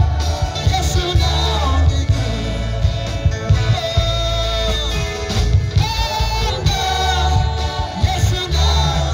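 Loud gospel music: a singer's melody over a band with a heavy, pulsing bass line.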